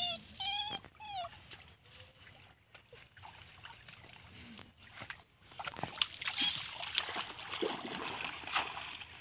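A dog whining in a few short, high, falling cries, then splashing and rustling through wet grass and muddy ditch water from about six seconds in.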